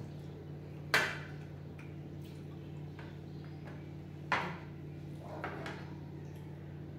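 Tableware clinking at a meal: a sharp knock about a second in, another a little past four seconds, and a softer one about a second after that, over a steady low hum.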